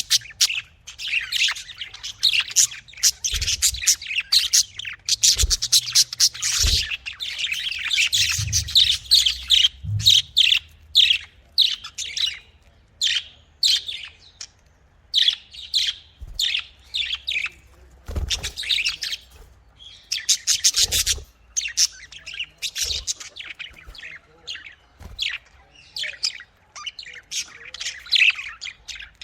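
Pet budgerigars chirping and chattering in quick, high-pitched runs with short pauses between bursts. A few soft low thuds sound underneath now and then.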